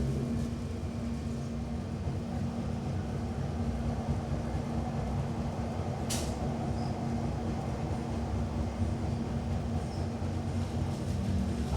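Train running with a steady low rumble and hum, and a short sharp hiss about six seconds in.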